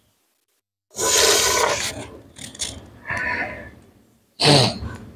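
A person sneezing: a long, loud sneeze about a second in, a few shorter sounds after it, and another sharp sneeze near the end.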